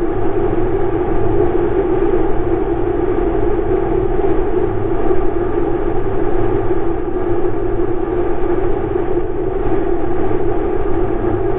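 Yamaha X-MAX 250 scooter's single-cylinder engine running at a steady cruise on a highway, its even drone mixed with wind and tyre noise from riding at speed.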